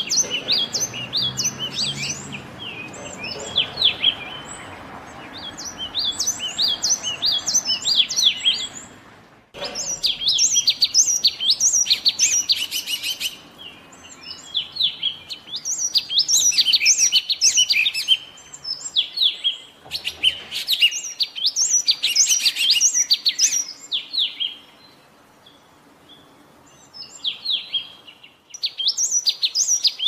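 Yellow tit singing: rapid series of high chirping notes in phrases a few seconds long, separated by short pauses. The song cuts off abruptly about a third of the way through, then resumes.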